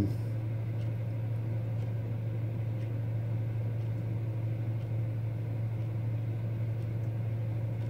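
Worcester gas boiler running with a steady low hum, its burner still firing with the timer switched off as the water temperature reaches 99 degrees: a control fault that keeps it firing into overheat.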